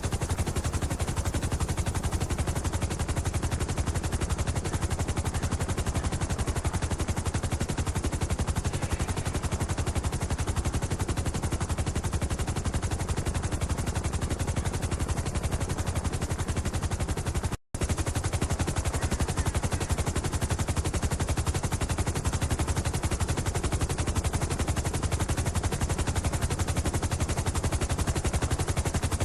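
Helicopter rotor sound effect: a steady, rapid, loud chop of the blades running without let-up, with a brief dropout about 18 seconds in where the loop restarts.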